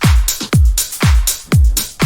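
Electronic dance music with a steady kick drum, about two beats a second, and hi-hat ticks between the beats.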